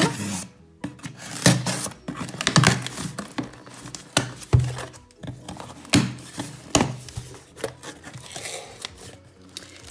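Cardboard shipping box being opened by hand: a knife slits the packing tape, then the paper band, box flaps and plastic wrapping are handled, with crinkling and irregular taps and scrapes.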